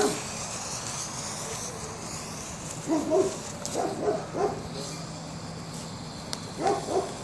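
A dog barking in short bursts: a run of barks about three seconds in and two more near the end, over a faint steady hiss.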